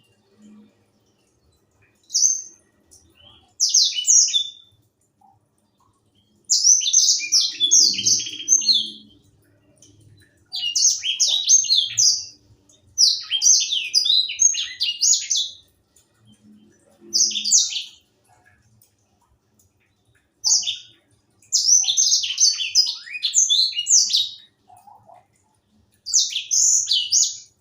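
Young Edel sanger (grey singing finch) singing in repeated bouts of fast, high, twittering song, each a second to three seconds long, with short pauses between them.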